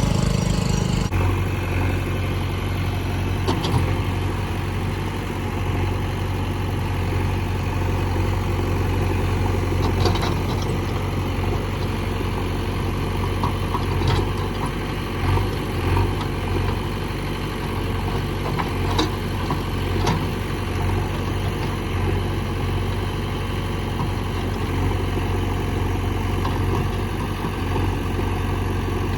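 JCB 3DX backhoe loader's diesel engine running steadily as the machine works. Its note drops a little about a second in, and scattered clicks and knocks sound over it.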